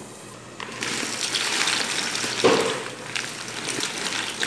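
Large pot of water at a rolling boil, bubbling steadily, with a short bump about halfway through as dry pasta is tipped into the water.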